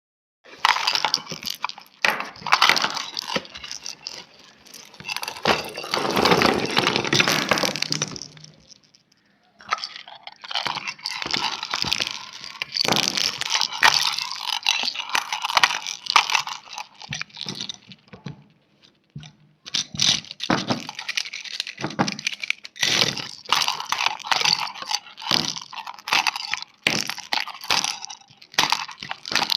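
Dense, rapid crackling and crunching in long runs, broken by two short pauses.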